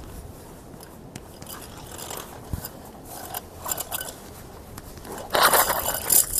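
A cloth stake bag rustling as it is handled, then a bundle of metal tent pegs sliding out of it and clattering together onto the ground for about a second, near the end.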